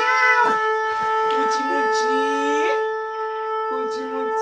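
A conch shell (shankha) is blown in one long, steady note for a ritual. Beneath it, a lower tone wavers and glides upward in pitch.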